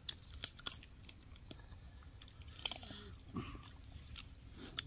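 A person chewing and biting into fried chicken lollipops, with a run of sharp crunchy clicks, several in the first second and a few more later.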